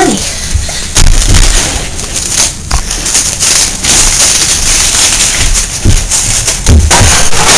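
Camera microphone rubbing and knocking against clothing as the camera is handled: loud scraping rustle with irregular sharp knocks and low thumps, the heaviest about a second in and again near the end.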